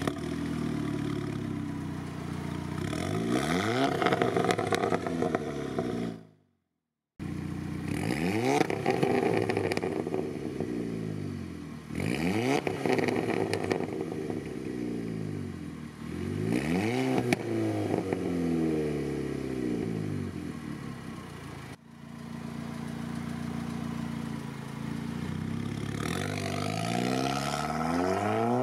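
Tuned Volkswagen Golf 6R's turbocharged 2.0 four-cylinder, through a Milltek Race exhaust, idling and being revved four times, each rev rising and dropping back with crackles from the exhaust as it falls. Near the end it pulls away, the engine note rising steadily. The sound drops out completely for about a second after the first rev.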